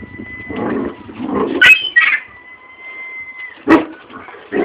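A dog making low grumbling whimpers over its water bowl, with a sharp knock and a brief high squeak about a second and a half in, and another knock near the end.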